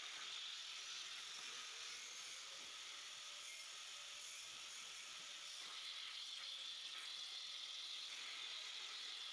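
CNC plasma torch cutting steel plate: a steady high hiss. It eases for a few seconds in the middle while the torch moves between cuts, then comes back stronger as cutting resumes.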